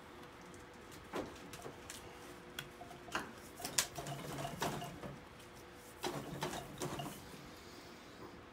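Metal parts of a diesel piston and cylinder liner assembly being handled on a workbench: scattered light clicks and knocks, with a few short spells of shuffling and scraping about four and six seconds in.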